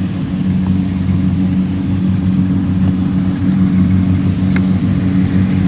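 Kubota DC70 Pro combine harvester's diesel engine running steadily under load while harvesting rice, a low even drone, with one brief click near the end.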